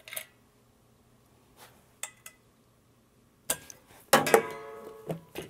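Metal clicks and knocks from a ball-lock gas disconnect and fittings being handled on a stainless-steel corny keg under CO2 pressure. The loudest is a ringing metal clank about four seconds in.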